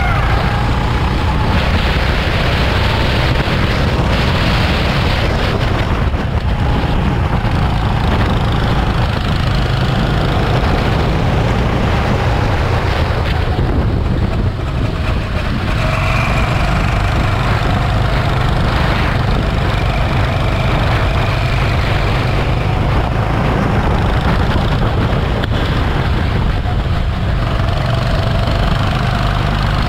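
Go-kart engine running hard on track, its pitch rising and falling with the throttle over a steady loud rumble.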